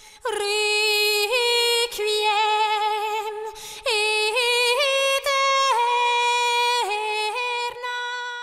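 A single high voice singing a slow unaccompanied melody of long held notes that step up and down.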